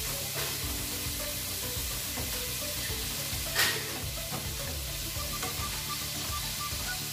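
Sliced bitter melon and onion sizzling in a frying pan while a wooden spatula stirs and scrapes through them. There is one sharp clack about halfway through.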